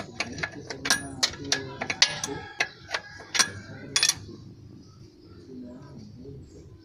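A metal wrench clicking and clinking against the fuel-injection line nuts of a diesel engine as the lines are worked loose or tightened. The clicks are sharp and irregular, a few a second, and die away about four seconds in.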